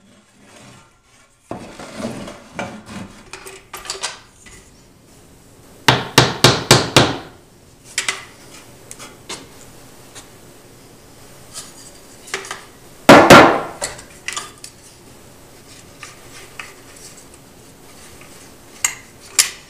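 Wooden shims being tapped into place under a bullnose: a quick run of about six knocks around six seconds in, one loud knock near the middle, and scattered lighter knocks and tool clatter.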